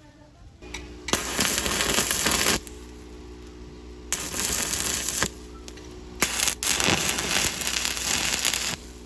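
Stick welding arc crackling on steel plate in three runs, about a second and a half, a second, and two and a half seconds long, over a steady electrical hum.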